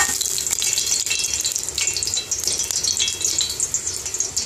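Vegetable oil sizzling in a hot frying pan, a steady hiss with many small pops and crackles.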